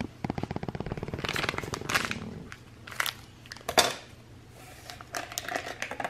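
Plastic instant-coffee sachets being handled and cut open with scissors. There is a quick run of small clicks for the first two seconds or so, then scattered crinkles and taps, the sharpest a little before the four-second mark.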